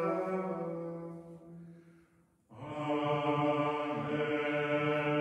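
Liturgical plainchant: a held sung note dies away about two seconds in, and after a short silence a new chanted phrase begins on a steady reciting pitch.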